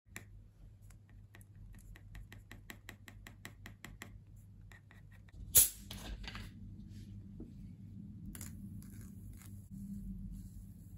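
Pencil scratching quick strokes on aluminium foil, about six strokes a second, then a single sharp knock. After that comes a steady high fizzing hiss with soft swishes as a wide brush spreads foaming brown liquid over the foil.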